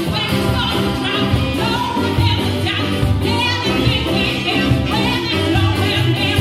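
Live band music: saxophone, electric keyboard, drum kit and electric bass playing together, with a woman singing.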